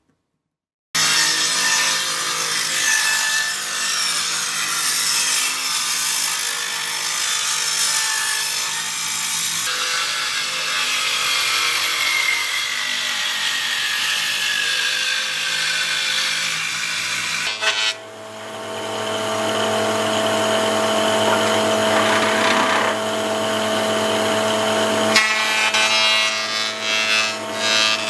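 After about a second of silence, woodworking machines run while cutting wood: a table saw ripping a softwood board, its whine dropping as it cuts, then a planer-thicknesser running as boards feed through. The machine sound changes suddenly several times.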